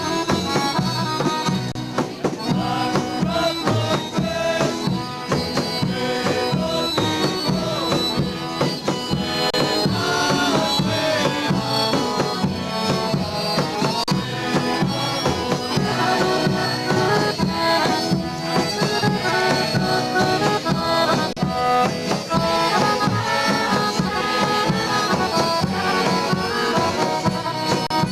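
Live accordion playing a lively folk kolo dance tune: a quick running melody over a steady rhythmic beat.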